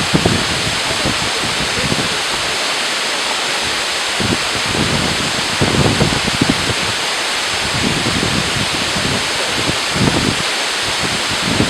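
Waterfall rushing steadily, with wind buffeting the microphone in uneven low gusts, strongest about halfway through and again near the end.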